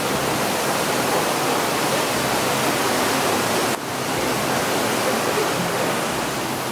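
Steady rushing of a waterfall, with a brief dip in level about four seconds in.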